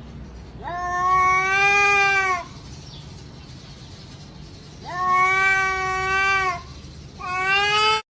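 A cat yowling in three long, drawn-out meows. The first two last nearly two seconds each, and the third is shorter and cut off abruptly near the end.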